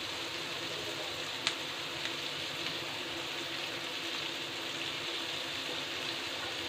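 Chopped onion and capsicum sizzling steadily in oil in a kadai, left unstirred, with one sharp pop about a second and a half in.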